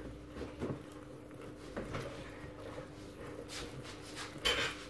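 Wire whisk stirring cake batter in a glass bowl, with a few soft taps and scrapes against the glass, the strongest near the end, over a steady low hum.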